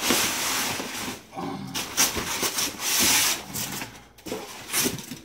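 Styrofoam packing pieces being pulled out and rubbing against each other and the box, in several bursts of scraping and squeaking.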